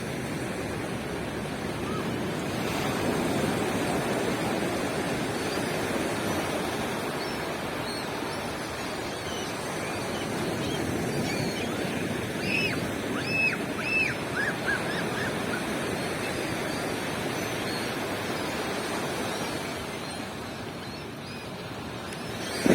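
Ocean surf washing steadily on a beach. About halfway through, a bird calls a few times in short rising-and-falling notes, followed by a quick run of chirps.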